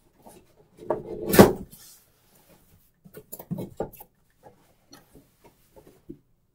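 A cardboard box being opened by hand: a loud scrape about a second and a half in as the top flaps are pulled open, then scattered short rustles and taps of cardboard and foam packing wrap being handled.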